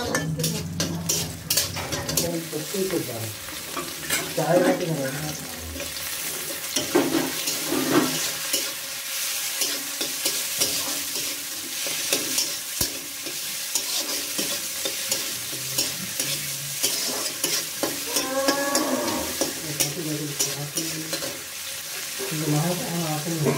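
Chopped onions, tomatoes and chillies sizzling in hot oil in a wok, stirred with a steel spatula that scrapes and taps against the pan over and over.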